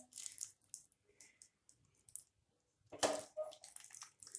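A spatula scooping thick curry out of a non-stick wok onto a plate: faint wet squishing and scattered small clicks, with one louder knock about three seconds in.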